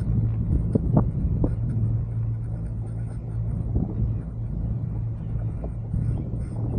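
Steady wind rumble on a camera microphone held out of a moving gondola cabin, with a constant low hum of vibration from the cabin coming through the selfie stick. A few light knocks come about a second in.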